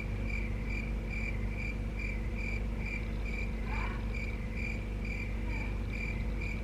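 A cricket chirping in an even rhythm, about two short high chirps a second, over a steady low background hum.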